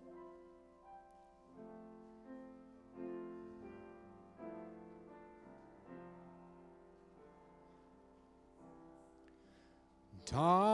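Piano playing a soft interlude of separate notes and chords between verses of a slow gospel song. Near the end a solo voice comes in loudly with a wide vibrato, starting the next verse.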